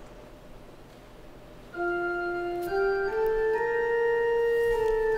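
An organ comes in about two seconds in, playing held chords with a slow melody moving in steps above them: the introduction to the responsorial psalm.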